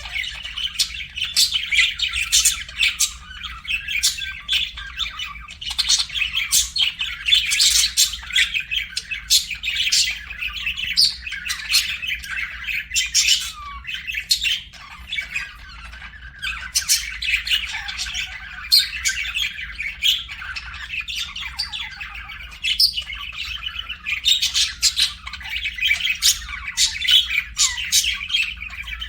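Budgerigar chirping and squawking in a continuous, busy stream of short, high calls.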